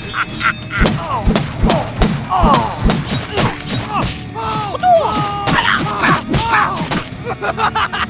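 Playful background music over a busy run of sharp knocks and clatters, with short sliding whistle-like cartoon sound effects in between.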